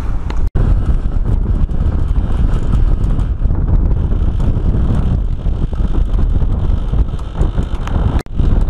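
Wind buffeting the camera microphone on the deck of a sailing yacht under way: a loud, steady low rumble that cuts out for an instant twice.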